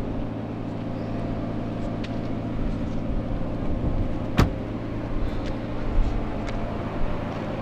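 A steady mechanical hum, with one sharp slam about four and a half seconds in as the pickup truck's door shuts, and a couple of lighter clicks after it.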